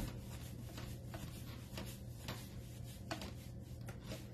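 Paintbrush working chalk-style paint onto a wooden bookshelf: faint, irregular brushing scrapes and light taps of the brush against the wood, with a sharper tap right at the start, over a steady low hum.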